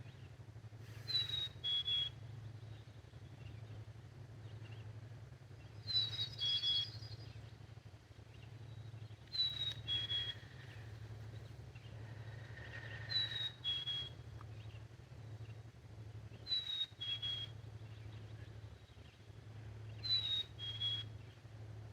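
A blocked nose whistling as a person breathes in a tent, a high thin whistle on each in-breath and out-breath, about every three and a half seconds, from nasal congestion. A steady low hum runs underneath.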